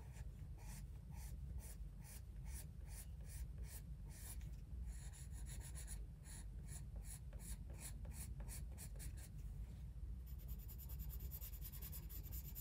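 Oil-based Faber-Castell Polychromos coloured pencil scratching over paper in short, light shading strokes, about three a second.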